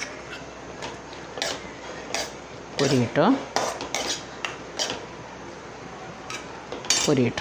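A metal spoon clinking and scraping against a pan in short, irregular strokes as onions and ginger-garlic paste are stirred and fried in oil.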